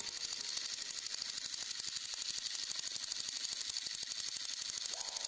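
Battery-powered toy train engines running along plastic track, their small motors and gearboxes giving a rapid, even clicking.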